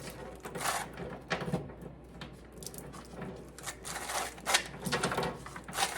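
Bicycle chain being pulled by hand through a solvent-filled chain-cleaning tool, its links rattling and scraping through the tool in short, irregular pulls.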